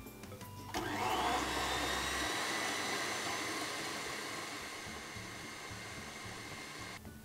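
Electric stand mixer switched on about a second in, its motor whining steadily as the paddle beats margarine and sugar together, then switched off just before the end.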